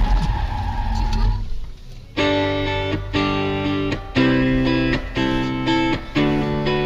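Background music: distorted electric guitar chords in a steady rhythm, changing about once a second, coming in about two seconds in after a low rumble fades out.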